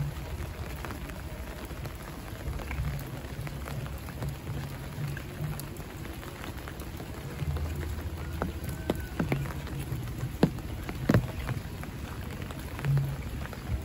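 Rain falling steadily, with scattered sharp clicks of single drops and soft low thumps. The sharpest click comes about ten seconds in.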